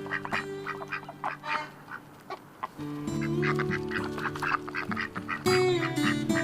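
Ducks quacking in quick, repeated calls over background music of held chords.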